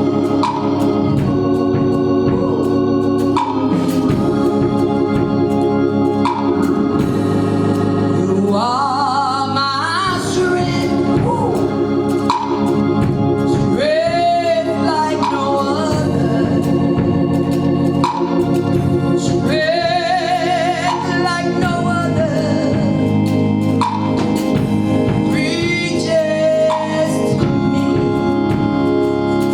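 Gospel music: an organ holding sustained chords, with a singer's voice coming in over it in several phrases.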